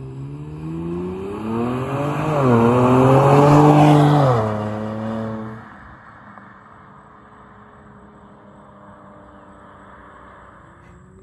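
Kia Stinger GT2's 3.3-litre twin-turbo V6, breathing through Injen intakes and a Borla cat-back exhaust, accelerating hard past. The engine note rises, dips at a quick upshift about two seconds in, and climbs again to its loudest around three to four seconds. The pitch then drops suddenly and the sound fades as the car moves away.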